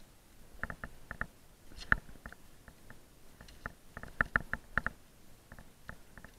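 Clicks and taps of metal climbing gear on the rope as gloved hands handle a rappel device: scattered single clicks, one sharp one about two seconds in, and a quick run of clicks a little past four seconds in.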